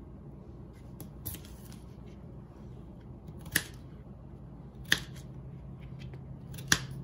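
Kitchen knife cutting through small red potatoes and striking a plastic cutting board: a couple of faint clicks, then three sharp loud clicks spaced a second or two apart.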